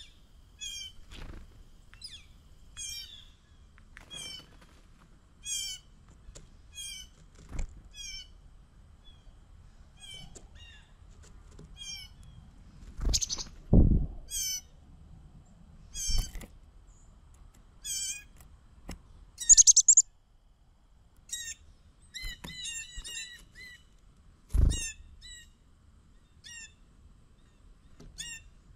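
Birds chirping over and over in short, high, downward-slurred notes, with a few dull thumps and wing flutters about halfway through and again later on.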